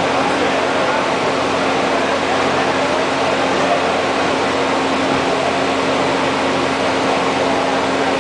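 Steady background din of a crowded event venue: many distant voices murmuring over a constant low hum.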